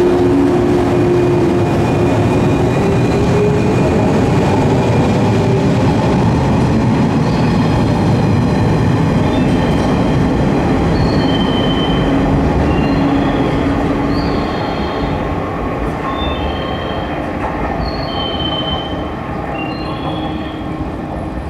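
JR 115 series electric train pulling out and accelerating away, its motors humming with a slowly rising pitch over the running noise of the wheels. From about a third of the way in, short high-pitched wheel squeals come and go as it crosses the curving station points. The sound fades over the last several seconds.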